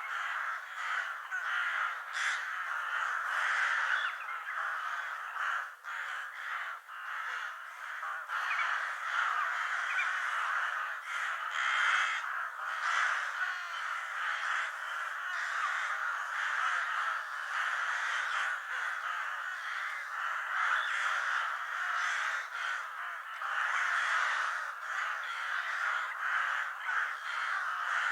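A large flock of crows cawing continuously, many harsh calls overlapping into a steady din with no pauses.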